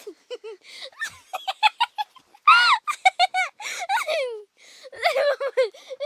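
A young girl laughing and giggling in quick high-pitched runs with breathy gasps between, loudest about two and a half seconds in and again near five seconds.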